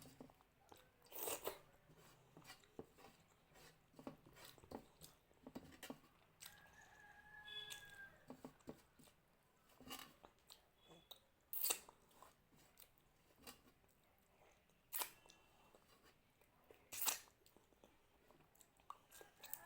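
Close-up mouth sounds of someone eating mutton curry with rice: quiet chewing with sharp smacking and biting clicks at irregular moments. A faint high held tone sounds for about a second and a half about six seconds in, and again near the end.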